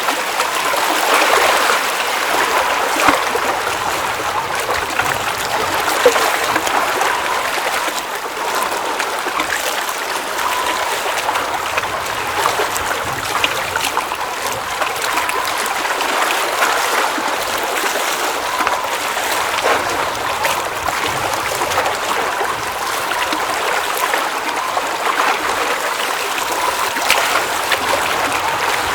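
Water at a mountain lake flowing and trickling in a steady babble, with small gurgles and splashes scattered through it.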